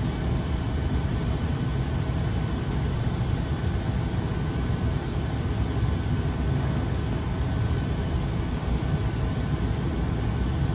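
Market-Frankford Line M-4 subway train standing at the platform, its onboard equipment giving a steady low hum with a faint whine above it.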